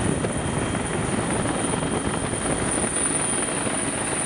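Military helicopter heard from inside the cabin with the side door open: a steady, dense rotor and engine noise with a thin high whine running through it.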